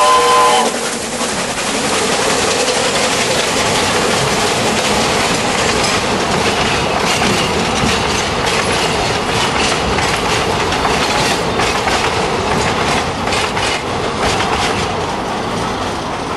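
The whistle of a narrow-gauge C2 steam locomotive cuts off about half a second in. Then a train of empty open wagons rolls past close below with a steady clickety-clack of wheels over rail joints, fading away near the end.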